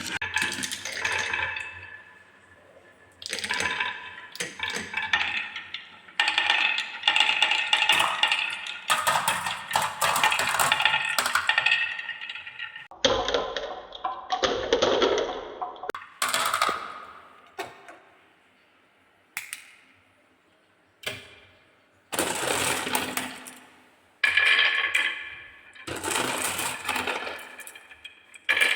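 Glass marbles rolling and clattering down wooden slopes and steps: runs of quick clicks and knocks with a light ringing, broken by short pauses and a quiet lull about two-thirds of the way through.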